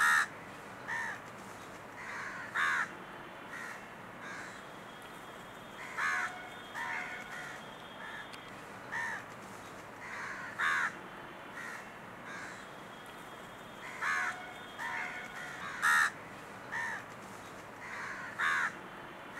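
Crows cawing: short harsh caws repeated again and again, some loud and close, others fainter.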